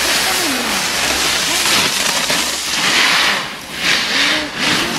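Snowboard sliding over packed snow: a steady rushing scrape that swells in three short surges near the end.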